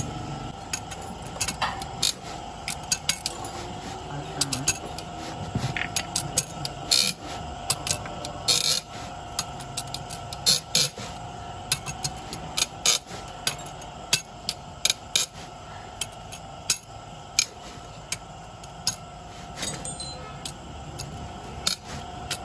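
Irregular sharp metallic clinks and knocks of hand tools and a steel bar against a bare Toyota engine block and crankshaft, over a steady hum.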